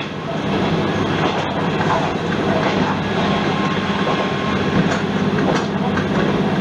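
Isumi Railway diesel railcar running steadily along the line, its engine droning under the noise of the wheels on the rails.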